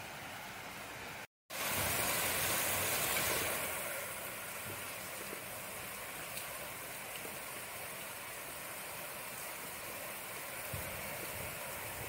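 Steady rain falling, an even hiss. About a second in the sound cuts out completely for a moment, then comes back louder and brighter for a couple of seconds before settling to the earlier level.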